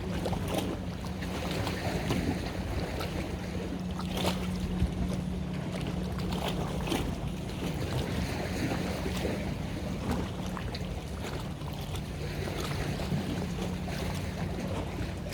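A boat's engine running with a steady low hum, under wind buffeting the microphone and the rush of water.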